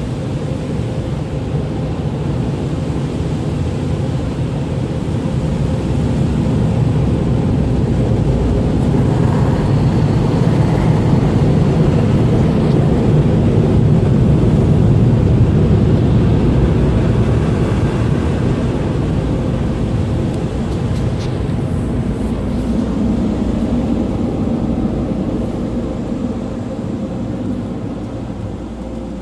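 Touch-free car wash's air dryer blowers running, a steady loud rush of air heard from inside the car, swelling toward the middle and easing off near the end.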